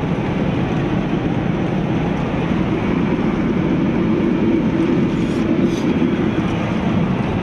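Steady low rumble of road and engine noise heard from inside a moving car's cabin at highway speed.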